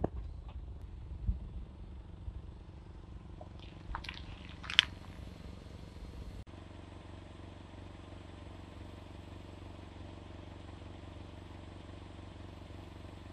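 Car engine idling with a low steady rumble, broken by a dull thump about a second in and two sharp cracks around four and five seconds in. About halfway it changes abruptly to a steadier, even idle hum.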